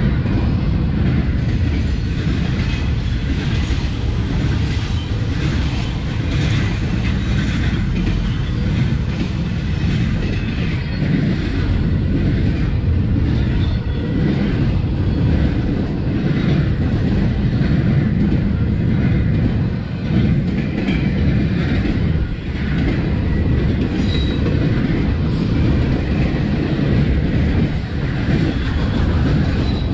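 Intermodal freight train of semi-trailers on flatcars rolling past: a steady rumble of the wheels on the rails with a clickety-clack over the joints.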